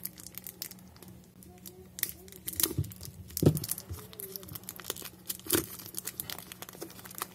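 Plastic shrink-wrap film being picked at and peeled off a cardboard retail box: irregular crinkling crackles, with a couple of louder crackles about three and a half and five and a half seconds in.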